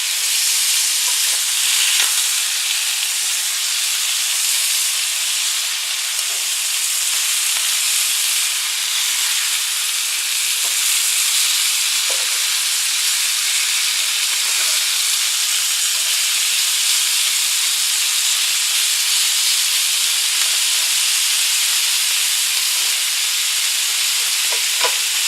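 Deer heart and onions frying in butter in a cast iron skillet, a steady sizzle, with a few faint light taps.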